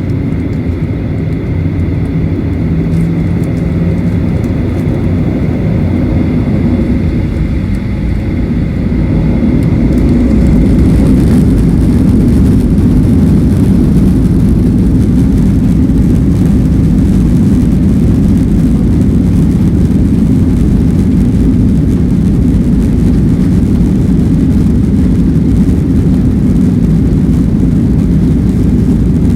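Boeing 737-800 jet engines heard from inside the cabin during takeoff: a steady whine at first, then from about ten seconds in a louder, steady low rumble as the airliner accelerates at takeoff power.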